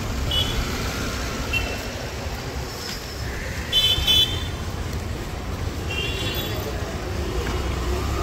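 Street traffic with a steady low engine rumble and short vehicle horn toots several times; two quick, loud beeps come about four seconds in.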